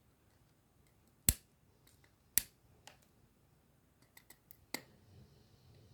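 Side cutters snipping the wire leads of a freshly soldered capacitor on a circuit board: two sharp snips about a second apart, followed by a few lighter clicks.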